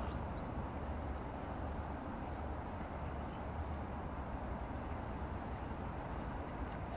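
River water running over a shallow riffle: a steady rushing noise with a low rumble underneath.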